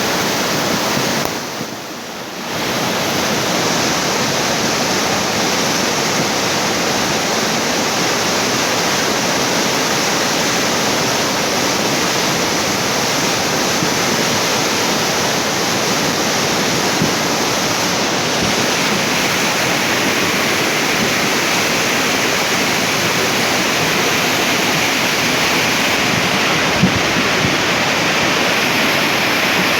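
Swollen mountain stream in spate after heavy rain, fast floodwater rushing with a loud, steady roar. It dips briefly about two seconds in.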